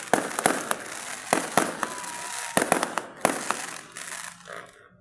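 Aerial fireworks bursting: a rapid, irregular run of sharp bangs with crackling between them, thinning out and dying away near the end.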